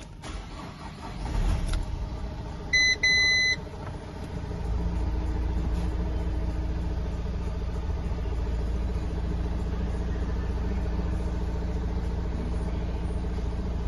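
Renault R9M 1.6 dCi four-cylinder diesel engine starting up, with a two-beep dashboard warning chime about three seconds in. From about four and a half seconds it settles into a steady idle.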